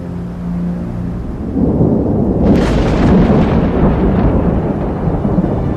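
Thunder: a low rumble builds, then a sharp crack comes about two and a half seconds in and rolls away into a long, deep rumble.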